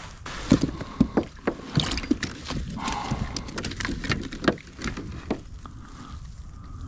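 Irregular knocks, taps and rattles on a kayak, about a dozen over five seconds, as a just-landed yellow perch is handled on board; they thin out near the end.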